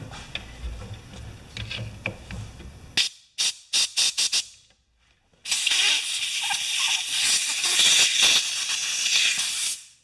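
Compressed-air blow gun blowing into a pressure washer's brass unloader valve to test it: about five short puffs of air, then a steady hiss of air lasting about four seconds.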